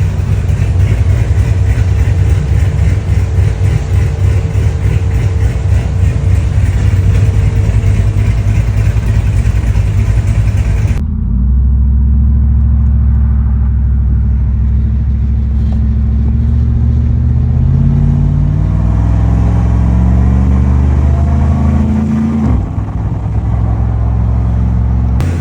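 Pickup truck engine running hard with a loud, rough rumble. After a sudden cut about 11 seconds in, the engine note climbs steadily in pitch as the truck accelerates, then drops sharply near the end.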